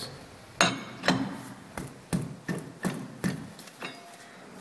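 A run of about seven sharp metal knocks, a third to half a second apart, from a lathe chuck setup as a small three-jaw chuck held in a four-jaw chuck is worked and dialed in to run true against a dial indicator.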